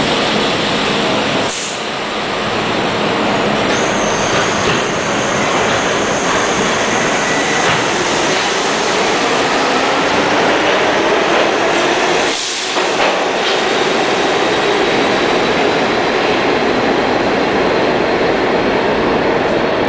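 New York City subway train running past along the station platform at speed: a steady, loud noise of steel wheels on rail, with a faint high squeal from the wheels.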